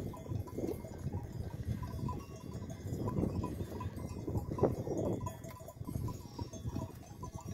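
A grazing flock of sheep and goats: livestock bells clinking on and off, with a few bleats, over a low wind rumble on the microphone.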